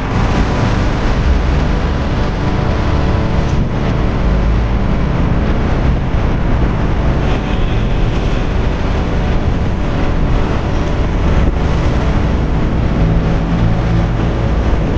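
Steady traffic noise from a busy road: car and truck engines running and passing, with a constant low rumble.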